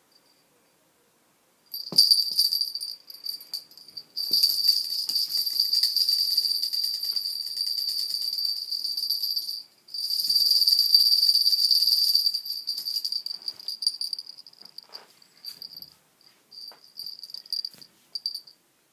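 A small jingle bell shaken fast and continuously, a bright ringing rattle that stops for a moment in the middle, then breaks into short scattered jingles near the end.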